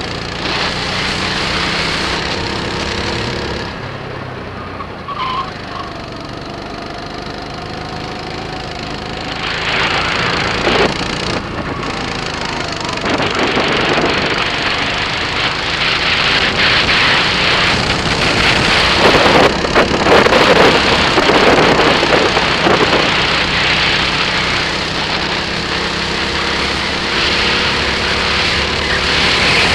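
Birel N35 rental kart's engine running on track, its pitch rising and falling with speed, with wind rushing over the microphone that grows loudest about twenty seconds in.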